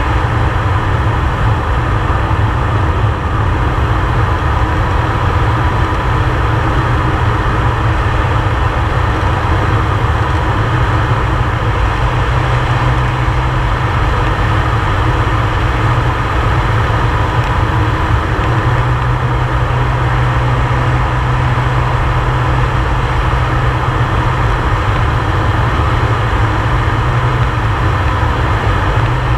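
Air Tractor 502XP's turboprop engine and propeller running in low-level flight, heard from inside the cockpit. It is a loud, steady drone with a thin whine above it.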